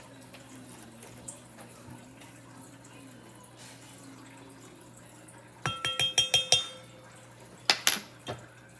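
Metal spoon clinking against a bowl, a quick run of about six ringing taps followed a second later by two more. This is the sound of baking soda being tapped off the spoon into the slime mixture.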